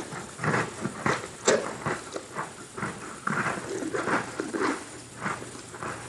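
Chewing Oreo cookies with cream filling: an irregular run of crunches and wet mouth sounds, a few each second.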